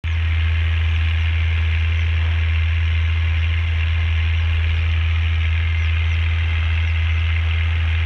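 Ursus 1634 tractor's six-cylinder turbo diesel (DS Martin Z 8602.12) with a straight-through stainless-steel exhaust, running steadily with a deep, even drone.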